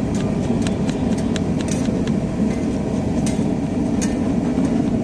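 Knife chopping onions on a wooden board: irregular sharp chops over a steady low background rumble.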